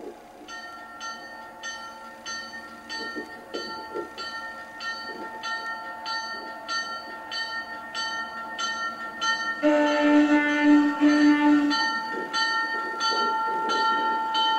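Fairbanks Morse H-12-44 diesel switcher's bell ringing steadily, about two strokes a second, over the rumble of the approaching locomotive, which grows louder. About two-thirds of the way through the bell is covered by two blasts of the air horn, a long one and a shorter one, then it rings on.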